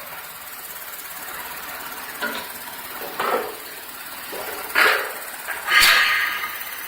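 Automatic box-beam welding machine running: a steady hum broken by four sharp metallic clanks or hissing bursts, the last two near the end the loudest.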